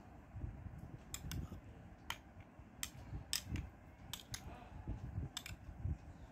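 Metal spoon stirring chunky salsa in a small dish, clinking sharply against the dish about ten times at uneven intervals over a low, uneven scraping rumble.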